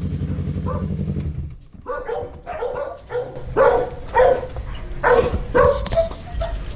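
Yamaha R3's parallel-twin engine idling, switched off about a second and a half in. A dog then barks repeatedly, about twice a second.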